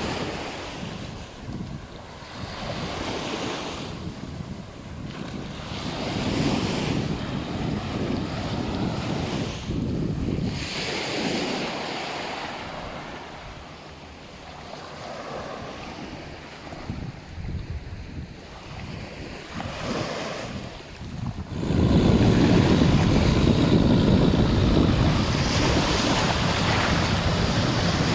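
Sea waves washing onto a beach, swelling and falling back every few seconds, with wind buffeting the microphone. About three-quarters of the way through the wind rumble turns much louder and stays heavy.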